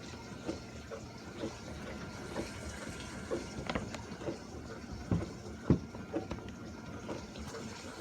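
General Electric dishwasher with water rushing in at the start of a wash stage: a steady wash of water noise broken by irregular short splashes and knocks, the sharpest about five and a half seconds in.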